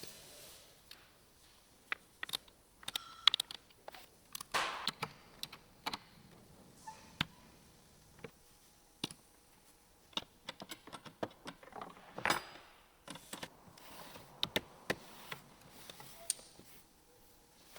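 Irregular light clicks and knocks of hard objects being handled, with a few louder knocks and short scraping sounds.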